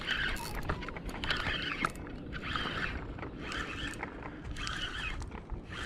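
Spinning reel being cranked to bring in a hooked fish, its gears whirring in a rhythmic pulse about once a second over a steady low rumble.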